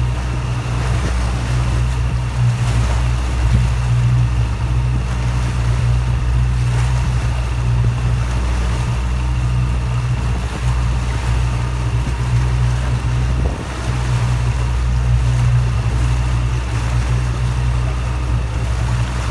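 Motor boat's engine running steadily under way, a continuous low drone.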